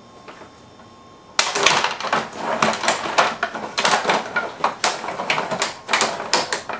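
Rod table hockey game in play: after a quiet start, a dense run of rapid clicking and clattering from the metal players, rods and puck begins suddenly about a second and a half in and keeps going.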